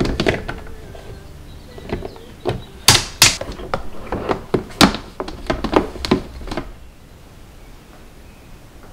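Hard white plastic parts of a bean-sprout grower knocking and clicking together as the sprout basket and the perforated top box are set in place. A quick, uneven run of sharp knocks, loudest about three seconds in, stops about two-thirds of the way through.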